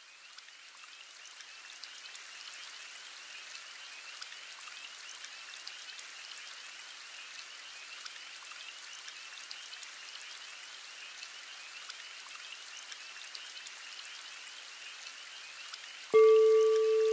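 Ambient nature sound fading in: a soft patter of drops with a steady chorus of high, wavering frog-like calls. About a second before the end, a bell-like tone is struck once and rings on loudly.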